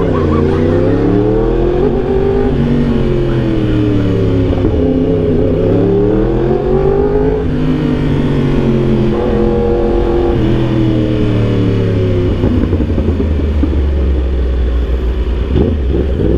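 Yamaha R1M's crossplane inline-four running through an Austin Racing exhaust, heard from on the bike while riding at low speed. The engine note rises and falls with the throttle several times and drops sharply in pitch twice, about halfway through and again a little later.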